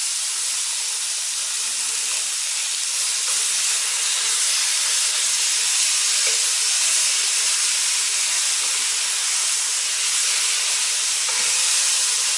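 Cubed pork neck sizzling in a cast-iron kazan over a gas burner at full flame: a steady, dense hiss as the meat sears and browns while it is stirred with a wooden spatula.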